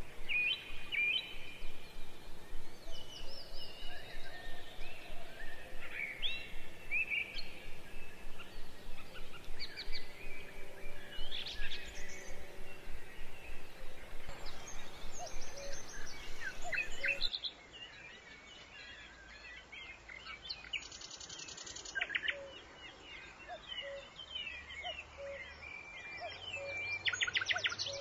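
Birdsong ambience: many birds chirping and calling. About two-thirds of the way through it changes to a quieter, duller recording of birds, with bursts of fast trills.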